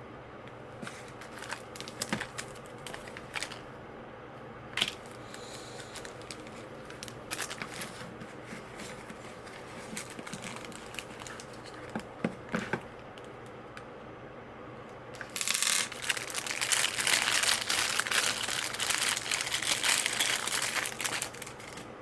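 Packaging being handled and opened: scattered small clicks and rustles at first, then loud, continuous crinkling and tearing of packaging for about six seconds near the end.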